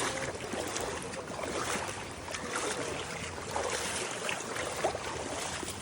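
Steady rush of flowing water at a creek waterfall.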